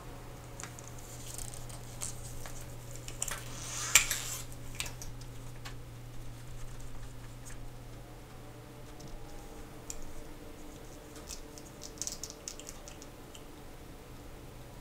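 Close-up handling of a steel Rolex 16000 watch case on a plastic bag: small clicks, taps and plastic crinkling as the case is turned and lifted off its movement, with one sharp click about four seconds in. A low steady hum sits underneath.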